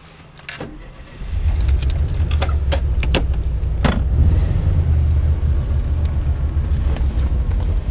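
1978 Volkswagen Beetle's air-cooled flat-four engine running, jumping to a loud steady low rumble about a second in. Keys jingle and sharp clicks come from the dash and ignition area during the first few seconds.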